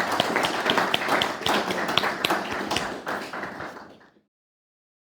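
A small audience applauding with dense, irregular hand claps. The clapping fades and the sound cuts out completely about four seconds in.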